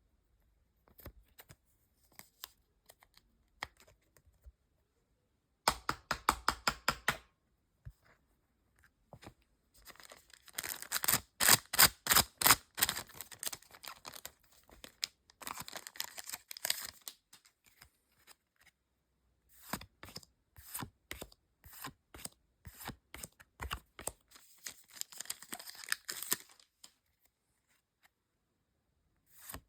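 Pokémon trading-card booster packs being handled: the foil wrappers tearing and crinkling and the cards being slid and flicked. It comes in several bursts of quick crisp rustles and clicks with short pauses between, loudest a little before the middle.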